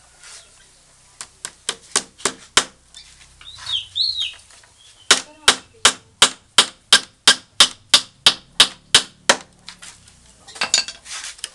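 Sharp wooden taps as a bamboo peg is knocked into a rattan lashing on a bamboo joint. There are a few quick taps about a second in, then a steady run of about a dozen taps, roughly three a second.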